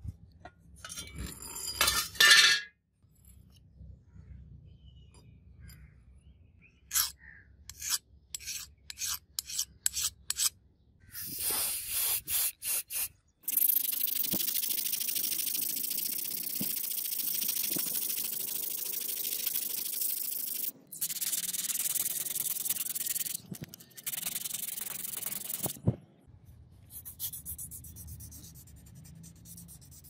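Sandpaper wrapped round a wooden stick rubbed back and forth on a steel knife blade, hand-sanding it toward a polish. At first it comes as separate short strokes, then as a long run of steady rubbing.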